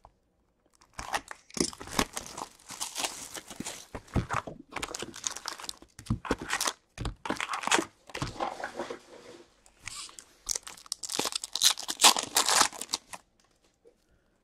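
A 2020-21 Upper Deck Hockey Extended Series cardboard box is torn open and its foil card packs are handled and ripped: repeated, irregular tearing and crinkling that stops about a second before the end.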